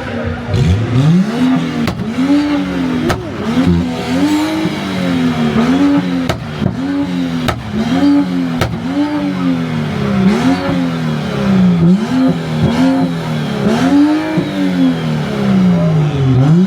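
Car engine revved hard over and over at a rev battle, its pitch rising and falling about once a second, with a few sharp pops from the exhaust.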